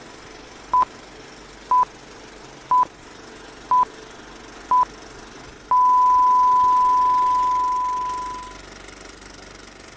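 Film countdown-leader beeps: five short, high, pure beeps one second apart, then a long held beep at the same pitch that fades away over about three seconds.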